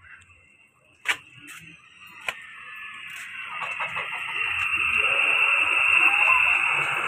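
Two sharp knocks, then a steady hiss from a cooking pot on the stove that builds over a few seconds until it is the loudest sound.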